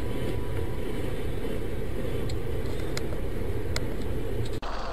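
Steady low rumble of a car's engine and cabin, heard from inside the car, with a few faint clicks. It cuts off abruptly near the end.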